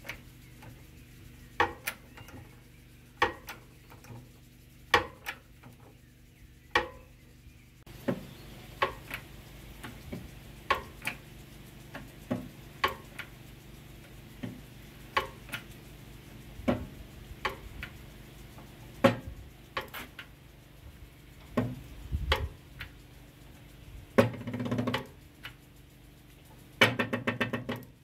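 Background music: a held low chord under sharp, irregularly spaced percussive knocks, with two quick rattling runs near the end.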